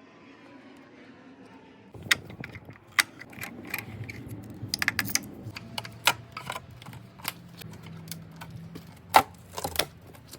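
Irregular sharp clicks and knocks of workshop handling and tool work, starting about two seconds in.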